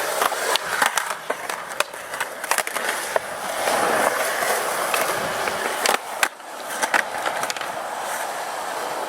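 Skateboard wheels rolling on the park surface, with repeated clacks of the board. A single sharp crack comes about six seconds in.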